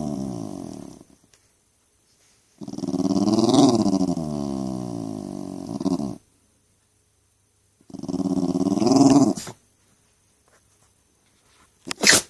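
Jack Russell Terrier grumbling in three long, drawn-out growly moans that rise and fall in pitch, then a quick sneeze near the end.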